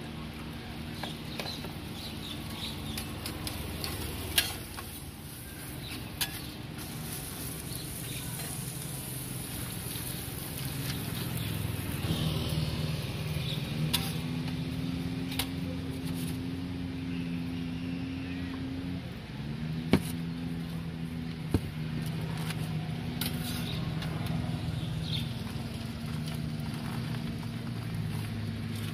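An engine running steadily, rising in pitch about twelve seconds in and again near twenty seconds, with sizzling from the roti griddle underneath. Four sharp knocks stand out.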